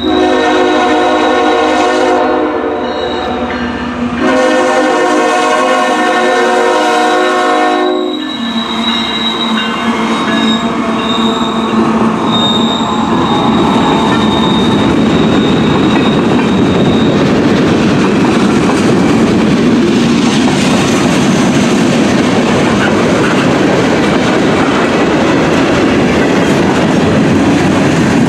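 CN freight train's diesel locomotive horn sounding two long blasts, then the train passing close by with a steady heavy rumble of wheels on rail. A thin high whine rises over it for several seconds after the horn.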